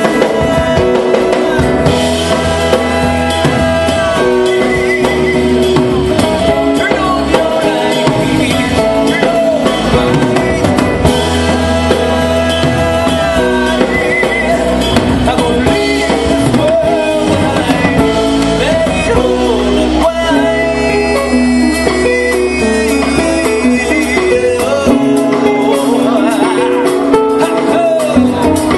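Live rock band playing loud: a man singing over acoustic guitar, a second guitar and a drum kit.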